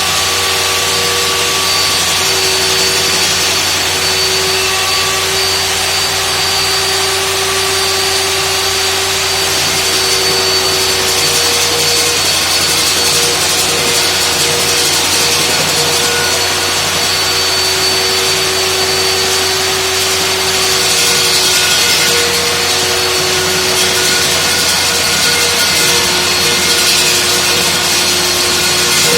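Core drill running steadily as it cuts a hole through a retaining wall: a continuous grinding noise with a constant high whine and lower hums that fade in and out.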